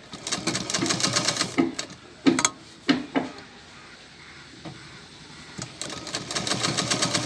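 Sewing machine stitching through fabric in two fast, even runs of needle strokes, one at the start and one from near the end, with a few separate sharp clicks and a short lull between them.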